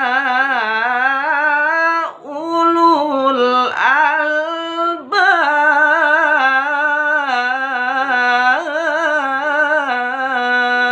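Qur'an recitation in melodic tilawah style: a single voice chanting long held notes with rapid wavering ornaments. There are two short breaks for breath about two and four seconds in, and then one long ornamented note carries on.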